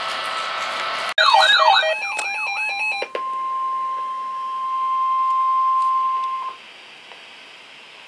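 Weather radio receiver audio: about a second of hissy broadcast, then an abrupt switch to a warbling, sweeping electronic alert with beeps for about two seconds. Then comes one steady tone held for about three seconds, the weather radio warning alarm tone, and faint hiss after it stops.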